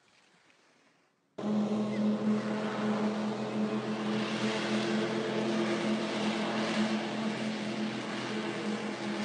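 Wing-in-ground-effect craft's propeller engine running at a steady, unchanging pitch with a rushing noise mixed in, cutting in abruptly about a second and a half in.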